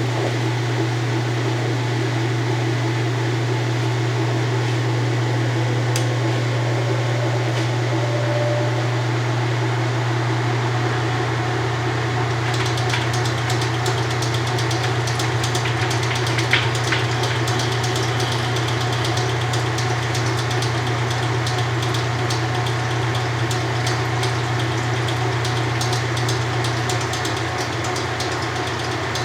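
1993 Kenmore 80 Series top-load washer running a spin with an empty tub: a steady motor hum, with fine rapid ticking added from about halfway in.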